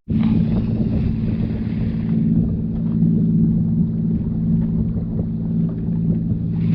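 Boat engine running steadily with an even low hum, with wind noise over it.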